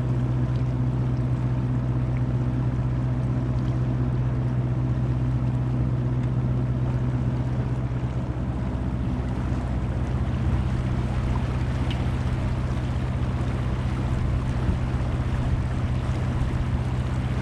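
A tour boat's motor running at steady speed: a constant deep hum with an even hiss of water and wind over it.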